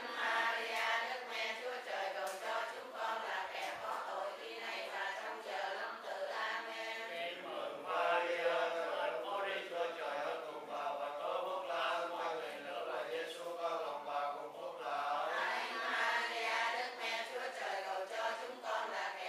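A group of voices chanting Vietnamese Catholic prayers together in unison, in a steady recitation tone.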